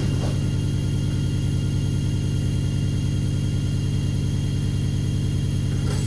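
MIG welding setup running with a steady, loud low hum and a constant hiss, unchanging throughout.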